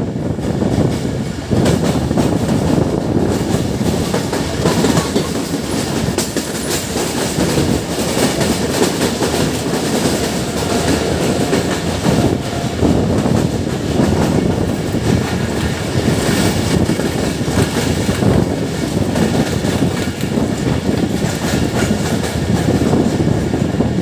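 Mehran Express passenger coach running along the track, heard from the side of the moving coach: a steady rumble of wheels on rails with a rapid clickety-clack of wheels over rail joints.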